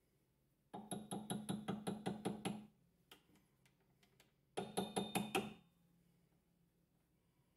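Chuck key turning in a three-jaw lathe chuck, giving rapid metallic clicking at about five or six a second. It comes in two runs: about two seconds of clicking starting near the beginning, then a shorter run around the middle.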